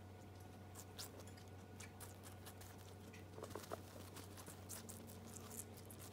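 Guinea pigs chewing watermelon, a faint, irregular run of crisp crunching clicks, with a louder bite a little over halfway through. A steady low hum sits underneath.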